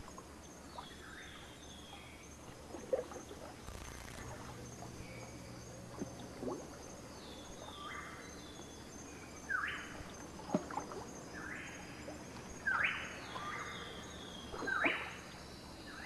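Wild forest and swamp ambience: repeated short animal calls, each sweeping up sharply and then holding a steady note, coming more often in the second half, over a faint steady high-pitched chirring.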